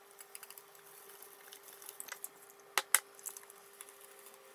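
Wire whisk beating gram-flour batter in a glass bowl: light, quick clicks and wet scrapes of the wires against the glass, with two sharper taps just before three seconds in. A faint steady hum runs underneath.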